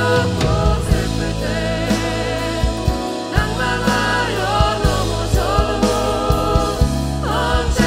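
Live contemporary Christian worship song sung in Korean: a male lead vocalist sings with band accompaniment.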